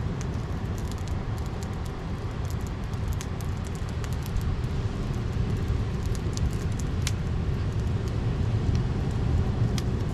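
Wood campfire crackling with scattered sharp pops and snaps, over a steady low rumble of wind on the microphone.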